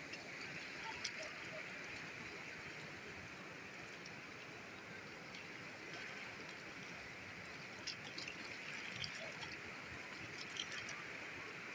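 Steady rush of the fast-flowing Chenab river running over its stony bed.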